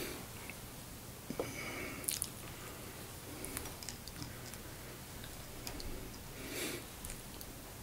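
Quiet room with a low steady hum and faint scattered clicks and rustles from fingers handling an ultrasuede tail and a hook in a fly-tying vise.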